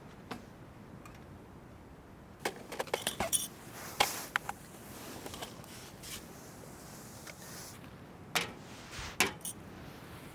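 Scattered light clicks, clinks and knocks of small objects being handled: a quick cluster about two and a half seconds in, a sharper knock at four seconds, and a few more near the end.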